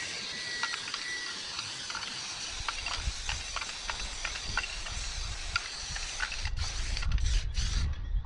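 Aerosol spray paint can spraying in one long continuous hiss, then a few short bursts before it cuts off near the end. A low rumble builds underneath in the second half.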